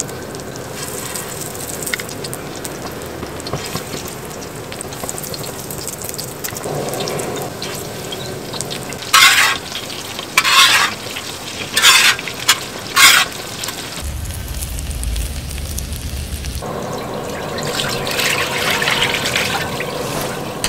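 Oyster pancakes sizzling as they fry on a cast-iron pot-lid griddle, with a handful of short, loud noises about halfway through. Near the end the sound changes to the soup being cooked, with stirring and liquid sounds.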